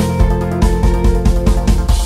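Dramatic game-show music: held chords over a pulsing low beat of about three hits a second, which breaks off at the very end.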